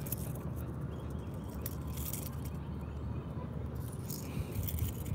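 Light metallic clicks and jingles of a crankbait lure's treble hooks and snap being handled by fingers, a few separate ticks over a steady low background rumble.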